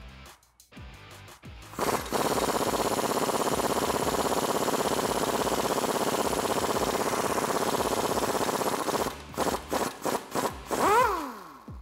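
Impact wrench with an 18mm socket hammering on a Jeep Wrangler JK's rear lower shock bolt for about seven seconds to break it loose. It then gives several short trigger bursts and a final spin that rises and falls in pitch as the bolt runs free.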